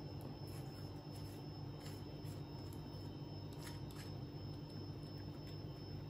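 Faint scrapes and light clicks of a small knife spreading soft herb butter over a flatbread, a few scattered through, over a steady low hum.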